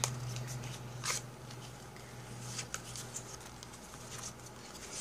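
Cosmetic packaging rustling and clicking as a lip crayon is taken out of its packaging by hand, in short scattered bursts over a steady low hum.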